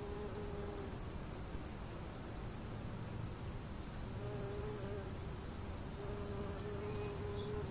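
Insects chirring steadily in a high, even band.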